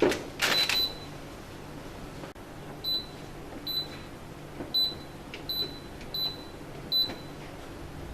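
Whirlpool fully automatic washing machine's control-panel buzzer giving short high beeps, seven in all at uneven intervals, after a sharp click at the very start.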